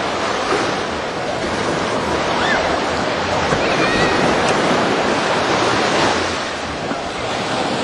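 Indian Ocean surf washing steadily onto a sandy beach, with wind on the microphone and a few faint, distant voices from bathers now and then.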